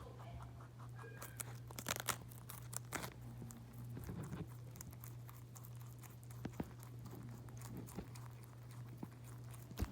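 Crunchy food being munched: scattered crisp crunches, thickest in the first few seconds and sparser after, over a low steady hum.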